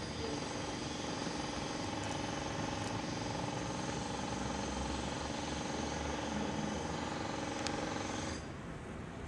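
A steady mechanical hum, like a motor or engine running, with an even droning pitch; it cuts off suddenly about eight seconds in.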